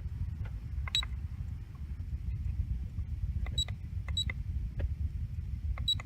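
Keypad of an RV keyless entry door lock giving short high beeps as code buttons are pressed: four beeps spaced irregularly, with faint button clicks among them. The lock is being tested after a repair for a deadbolt that would not engage.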